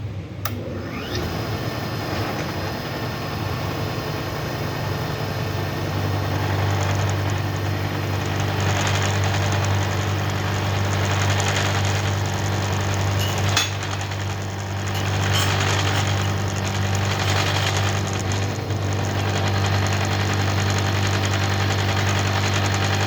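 Connecting-rod cap cutter running, its motor giving a steady low hum while it grinds the parting faces of Ford 302 rods and caps; the grinding noise grows louder through the middle of the cut.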